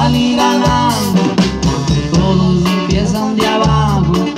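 Live band with accordion, guitars and drum kit playing a song through a PA.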